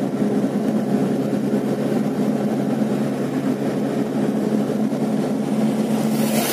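Steady car engine hum and tyre noise heard from inside the cabin while driving on new asphalt. Near the end there is a brief rushing whoosh as an oncoming wheeled tractor passes close by.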